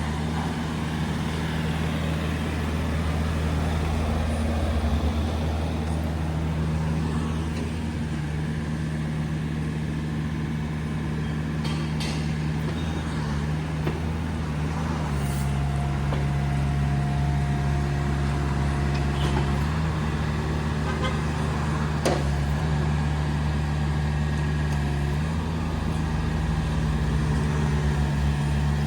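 Komatsu PC45MR-1 mini excavator's diesel engine running steadily as the machine is put through its paces, its note stepping slightly a few times, with a thin whine in the middle and a few sharp knocks.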